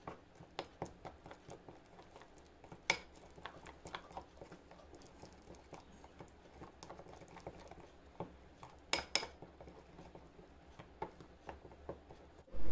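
A spoon stirring a thick paste of gram flour, coffee powder and curd in a small glass bowl: irregular soft clicks and scrapes of the spoon against the glass, with a louder knock about three seconds in and two more close together about nine seconds in.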